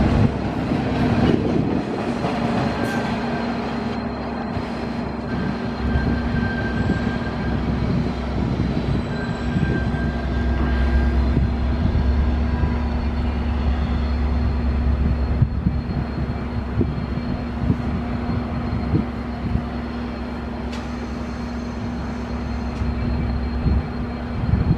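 Train rolling through a station: a steady low drone with many quick clicks and knocks from the wheels on the rails, and faint high squeals now and then.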